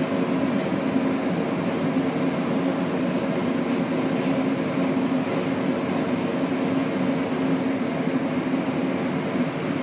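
Rubber-tyred Montreal Metro Azur train heard from inside the car, running at speed through the tunnel and arriving at a station near the end. Steady rolling noise with a few held motor tones.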